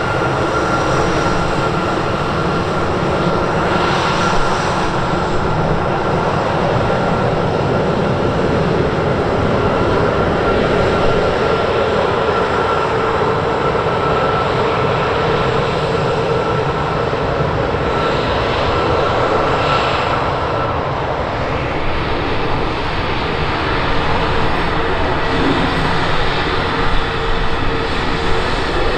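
Jet engines of an Airbus A320-family airliner running at taxi power, a steady roar with a high whine that sinks slightly in pitch and fades out about two-thirds of the way through.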